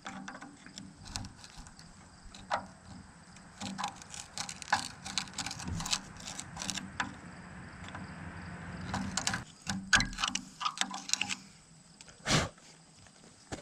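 Irregular metallic clicks and clinks of hand tools, Allen wrenches and a ratchet, working on the bolts that hold the teeth on a steel loader bucket, with one louder knock near the end.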